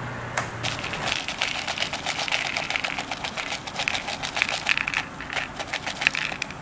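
Curled C- and 6-shaped 6061 aluminum lathe chips poured from a paper cup onto cardboard: a rapid, continuous clatter of light metallic clicks and tinkles, starting about half a second in.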